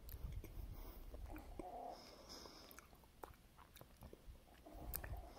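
Faint close-up chewing of a chewy, sticky oat and granola bite, with small wet mouth clicks and a low rumble in the first two seconds and again near the end.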